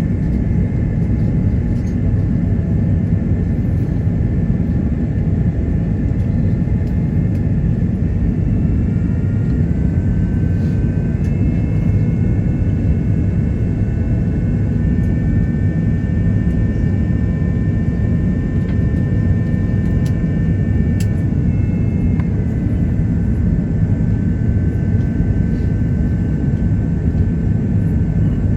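Steady roar of an Airbus A330-900neo in flight, heard from inside the cabin, with its Rolls-Royce Trent 7000 engines adding several thin high whining tones. The tones shift up in pitch about ten seconds in and drop back down about twenty-two seconds in.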